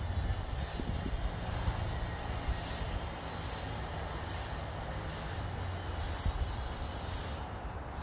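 Long-handled garden broom sweeping dry leaves, a swish about once a second, over a steady low rumble.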